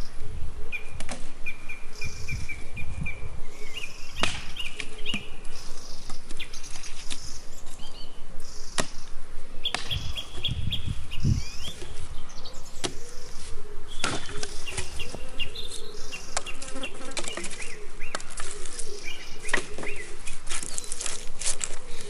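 Axe chopping dry branches on the ground: separate sharp chops a second or a few seconds apart, with birds chirping in between.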